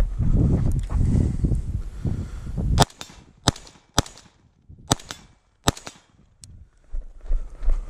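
LMT RA20 gas-piston rifle firing a string of five shots, a half second to a second apart, after a few seconds of low rumbling noise on the microphone.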